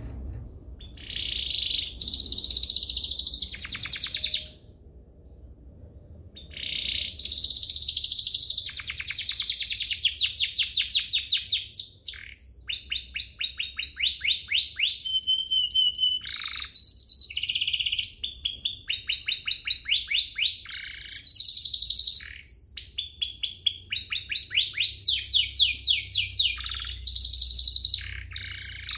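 Domestic canary singing in fast trills of rapidly repeated notes. It sings for about three seconds, pauses for about two, then sings on almost without a break, switching from one trill to the next and adding sweeping notes.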